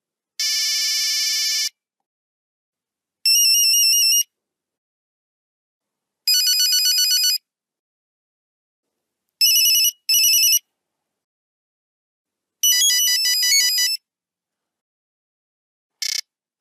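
A series of short Nokia 3310 monophonic tones: about six brief beeping electronic melodies, each around a second long, with clean silent gaps between them. The last one near the end is a few quick separate beeps.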